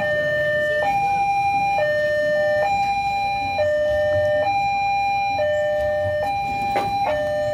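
Railway level-crossing warning alarm sounding, a lower and a higher electronic tone taking turns about once a second, signalling that a train is approaching; the uploader calls the crossing's sound 'coughing'. A low rumble of traffic runs underneath.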